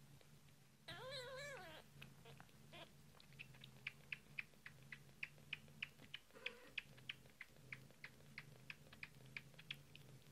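A few-days-old kitten gives one short, wavering mew about a second in, then suckles at a bottle teat with a steady run of soft sucking clicks, about three or four a second.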